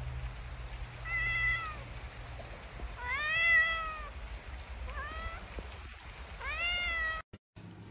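Domestic cat meowing four times. Each meow rises and then falls in pitch, and the one about three seconds in is the longest and loudest.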